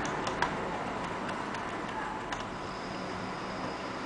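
Small sharp clicks and taps, about six, irregularly spaced, as a small screwdriver works at the screws and plastic underside of an ASUS netbook being taken apart.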